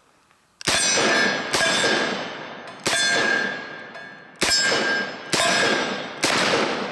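Smith & Wesson 629 .44 Magnum revolver firing six loud shots, each followed by the ringing clang of a hit steel target as it dies away. The shots come in an uneven rhythm: two about a second apart, a single, another pair, then a last one.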